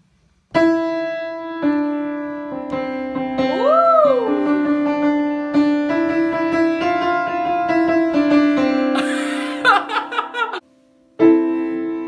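Upright piano being played: held chords and melody notes ringing on one after another. A voice briefly rises and falls over it about four seconds in, another short vocal burst comes near ten seconds, and the playing breaks off for about half a second before starting again.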